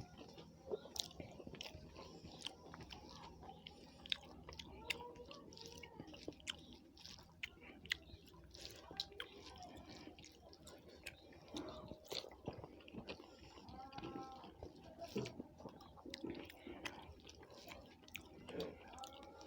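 Quiet close-up chewing and mouth sounds of people eating a meal of rice and curry, with many soft clicks and smacks.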